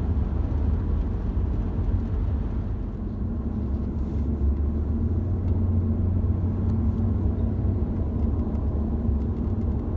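Steady road and engine rumble of a car driving at highway speed, heard from inside the cabin, swelling slightly in the middle.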